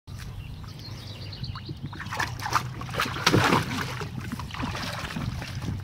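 Water splashing and sloshing in a shallow plastic kiddie pool as two dogs wade and step about in it, loudest a little past the middle, over a steady low rumble.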